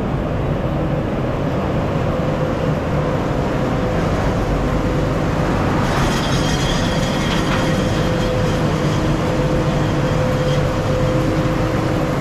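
Steady vehicle engine noise, a continuous rumble with a low hum. A brighter hiss and a faint high tone join about six seconds in.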